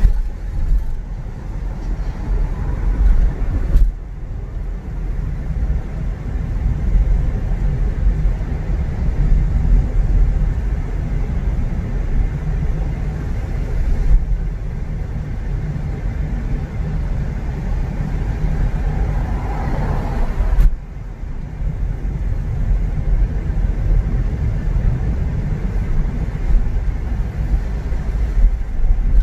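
Car driving in city traffic: a steady low rumble of engine and road noise with tyre hiss, shifting abruptly about 4, 14 and 21 seconds in.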